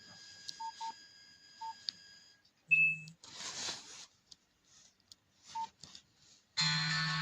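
Nokia 1280 keypad beeping as its buttons are pressed: several short single-pitch beeps, and a louder beep followed by a brief rustle about three seconds in. Near the end a ringtone melody starts playing loudly.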